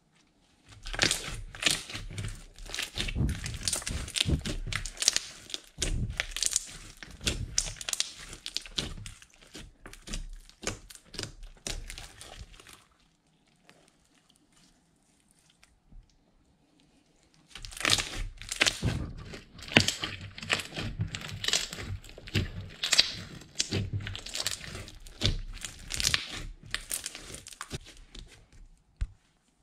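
Gold glitter slime being stretched, folded and pressed by hand: many quick crackling, popping clicks. They come in two long runs with a pause of about five seconds around the middle.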